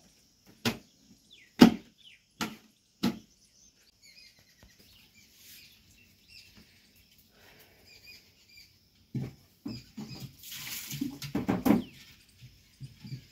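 Four sharp knocks in the first three seconds, then faint bird chirps over a quiet stretch, then a few seconds of scraping and knocking noise near the end.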